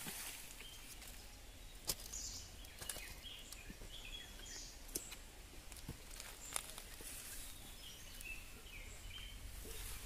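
Faint outdoor ambience: a low, steady rumble with scattered faint bird chirps and three brief sharp clicks.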